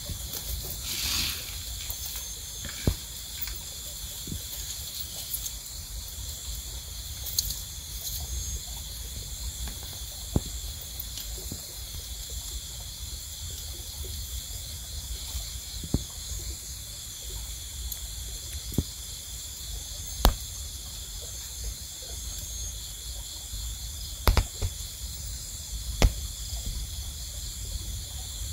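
Steady, high-pitched chorus of insects with a low rumble underneath, broken every few seconds by single sharp clicks and knocks.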